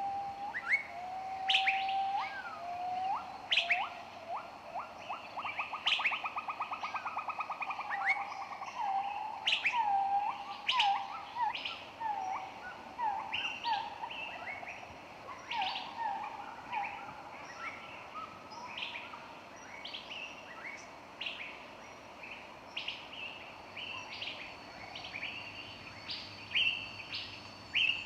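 Several birds chirping and singing together: short, sharp chirps throughout, steady low whistled notes in the first few seconds, and a rapid trill lasting about four seconds near the start. The calls grow sparser and quieter in the second half.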